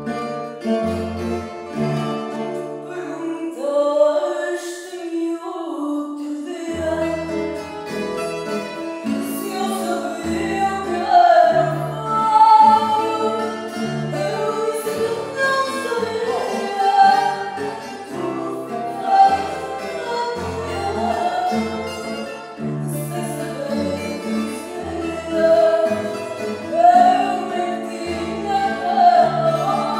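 Live fado: a woman sings, accompanied by a Portuguese guitar, a viola de fado (classical guitar) and a bass guitar. The bass drops out briefly a few seconds in, and the voice comes in after that gap.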